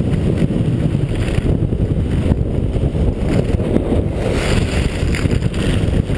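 Wind buffeting a helmet-mounted GoPro's microphone as the skier descends, a loud steady rumble, with skis hissing over groomed snow that grows stronger about two-thirds of the way through.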